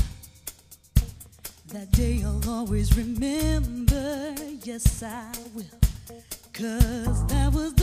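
Live funk-soul band playing an instrumental passage: an electric guitar plays a lead line with bent, vibrato notes over a heavy repeating bass and drum groove.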